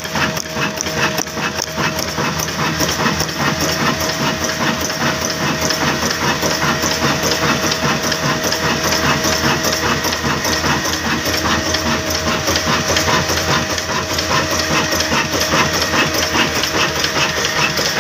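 A 22 hp 'Black' desi diesel engine running steadily with a fast, even knocking beat.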